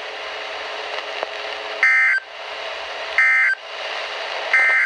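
Three short warbling data bursts of Emergency Alert System (SAME) end-of-message tones, each about a third of a second and a little over a second apart, heard over a weather radio receiver's steady hiss. They mark the end of the alert message.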